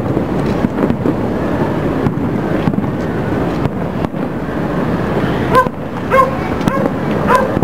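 Distant aerial fireworks popping and booming over the city, with a steady low rumble underneath. A dog barks several times near the end.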